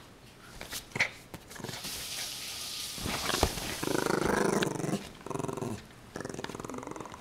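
American Eskimo puppy growling in play as it tugs and shakes a rope toy, the growl loudest about four to five seconds in, with rustling and a few knocks from the struggle.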